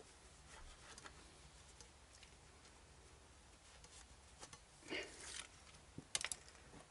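Faint hand-work noises as a new fork seal is worked down a Yamaha XJ900S Diversion fork tube through a cloth: soft rubbing and a few light ticks, a brief rustle about five seconds in, and a quick cluster of sharp clicks a second later.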